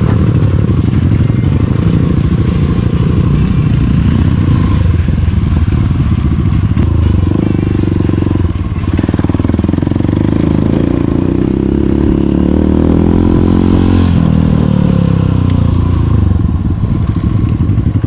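Dirt bike engine running as it is ridden, its pitch rising and falling with the throttle, with a brief drop about halfway through. It slows down and eases off toward the end.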